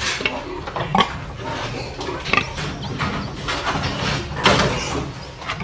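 Domestic sow grunting in a farrowing crate, with a few short, irregular sharper sounds over a steady low hum from the pig barn.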